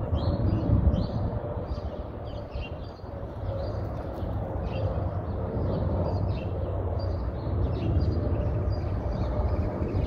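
Twin-engine jet airliner passing overhead: a steady low rumble of its engines. Songbirds chirp over it throughout in many short calls.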